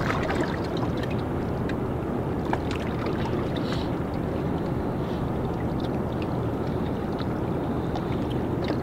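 Steady low rushing of wind and river water by the bank, with faint scattered ticks.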